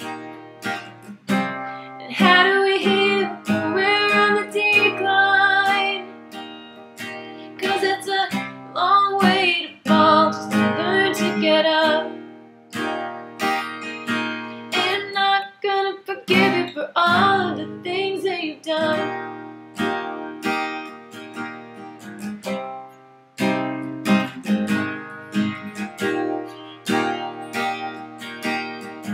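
Acoustic guitar strummed in a steady rhythm, with a woman's voice singing over it in a few stretches.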